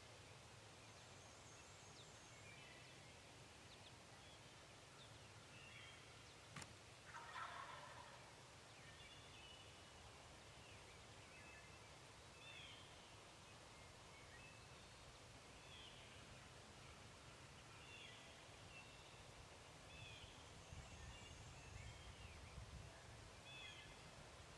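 A wild turkey gobbler gobbles once, faintly, about seven seconds in, just after a sharp click. Small songbird chirps sound here and there.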